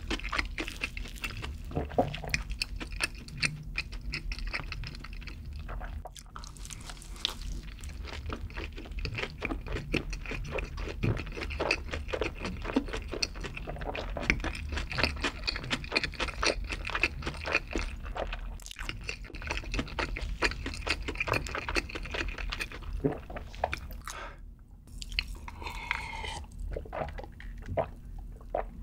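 Close-miked chewing of a bite of burger dipped in cheese sauce: dense, wet, crunchy mouth sounds with many small smacks. Just before the end, after a brief pause, swallowing gulps of an iced drink.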